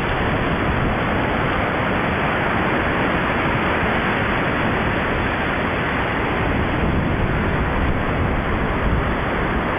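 Steady rushing noise of the sea, even and unbroken throughout.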